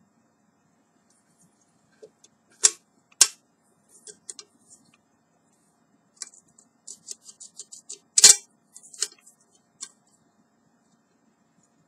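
Folding wire handles of a small camping cooking pot clicking and clinking against the pot's metal side as they are swung out and folded. There are two sharp clicks early, a quick run of small ticks in the middle, and the loudest click a little later.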